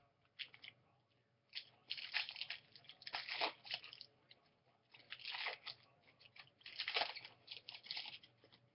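Stiff glossy trading cards being handled and slid against one another, with irregular rustling and scraping in three bursts.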